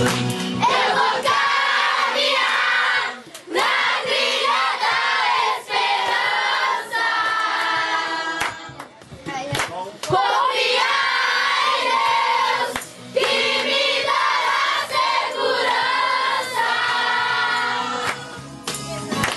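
A group of children and teenagers singing a song together, led by a girl with a microphone. The singing breaks off briefly a few times between lines.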